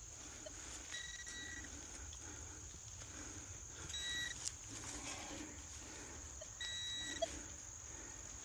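Metal detector sounding a short, steady high beep three times as it passes over a deep target, over a constant high drone of insects.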